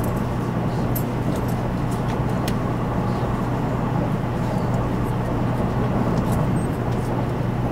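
Cabin noise inside a JR West 500 Series Shinkansen running along the line: a steady rumble of the running gear on the rails with a constant low hum underneath.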